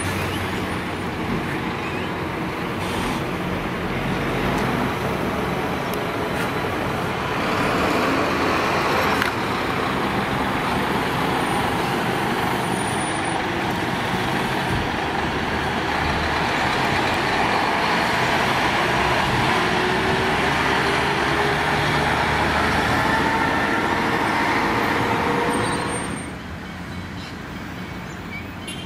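City route buses driving through a turn and pulling away, engines running and rising in pitch as they gather speed. Near the end the noise drops suddenly to a quieter background of traffic.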